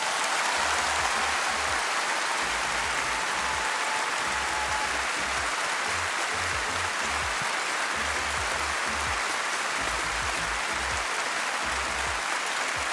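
A large audience applauding steadily, with the applause coming in suddenly at the start. Background music with a rhythmic low bass pulse plays under it, with a held high note during the first few seconds.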